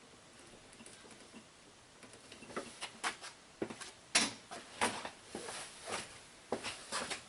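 Irregular light clicks and knocks of hands and tools working on the distributor while its cap is fitted and fastened. The clicks start about two seconds in and come several a second, with one louder knock near the middle.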